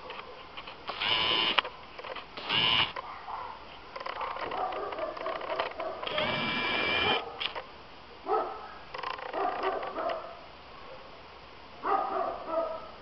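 Dogs at play, a dachshund and a komondor puppy: two sharp, high yapping barks a little after a second in and again near three seconds, a longer drawn-out yelp about six seconds in, then shorter, lower yaps around eight, nine and twelve seconds.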